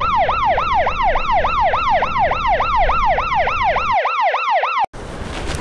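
Siren sound effect: a fast yelping wail that rises and falls in pitch about four times a second, then cuts off suddenly near the end.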